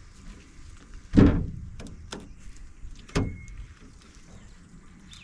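Fillet knife running along a flounder's backbone and hitting the rib cage bones: two loud strokes about two seconds apart, with a few small clicks between them.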